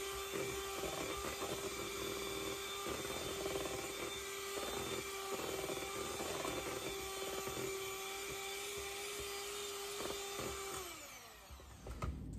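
Electric hand mixer running steadily, its beaters working through thick cake batter in a mixing bowl. About eleven seconds in it is switched off and the motor winds down, followed by a few light knocks.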